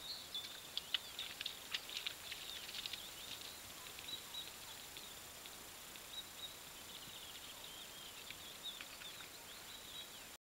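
Small birds singing in quick high chirps and twitters over a thin steady high tone. The sound cuts off suddenly near the end.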